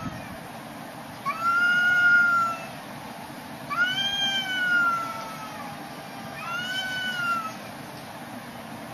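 Cat yowling, the drawn-out caterwaul of cats facing off in a fight: three long wails, each rising quickly and then sliding slowly down in pitch.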